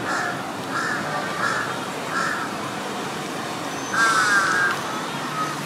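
Crows cawing: four short caws about every 0.7 s in the first two seconds, then one longer, harsher caw about four seconds in.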